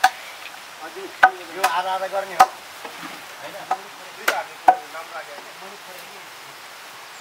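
Long-handled spatula knocking and scraping against a large wok as a pork and vegetable stir-fry is turned, giving about half a dozen sharp clanks at irregular intervals, mostly in the first five seconds. Faint voices in the background.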